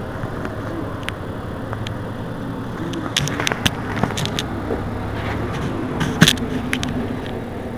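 Mercedes-Benz Citaro C2 city bus idling with a steady low engine hum. Several sharp clicks and knocks come around the middle, and a louder one about six seconds in.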